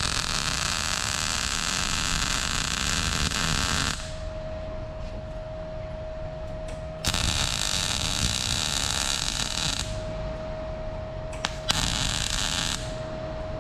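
Arc welding on exhaust piping: three runs of steady crackling hiss, each starting and stopping abruptly, the first about four seconds long, the second about three, and a short one near the end. A faint steady whine sounds between the runs.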